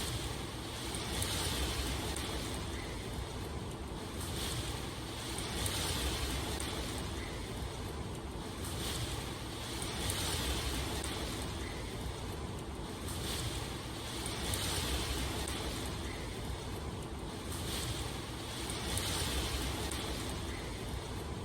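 A steady rushing of water noise that swells and eases about every four and a half seconds.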